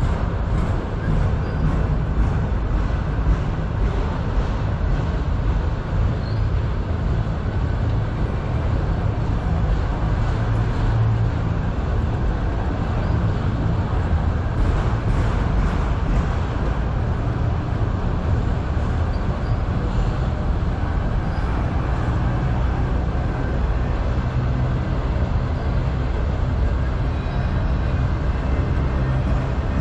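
Freight train of enclosed autorack cars rolling past: a steady rumble of steel wheels on the rails, with faint clicks of the wheels over the track.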